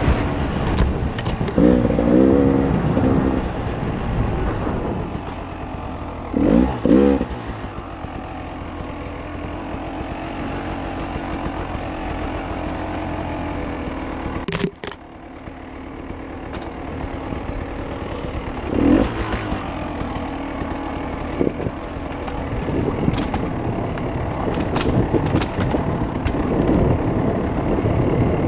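Beta RR 300 two-stroke enduro motorcycle engine running under a rider, the revs climbing sharply a few times and dropping off suddenly for a moment about halfway through.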